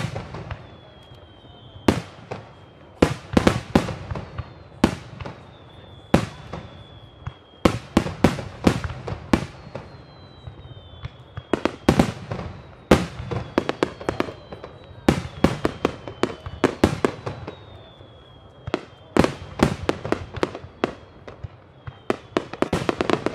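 Aerial firework shells bursting in quick, irregular volleys of sharp bangs, with faint high whistles falling in pitch between them.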